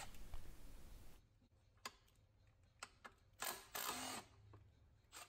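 Mostly near silence, with a few faint isolated clicks and a short faint rustle about three and a half seconds in, from gloved hands handling a cordless tool and intake manifold bolts.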